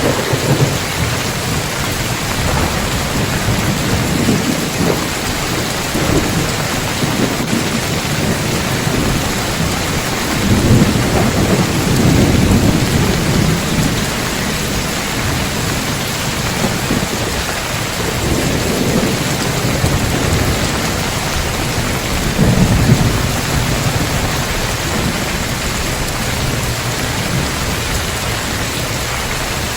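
Heavy rain pouring steadily on roof tiles, with rolls of thunder rumbling underneath: one near the start, a longer, louder roll about ten seconds in, and another sharp swell about 23 seconds in.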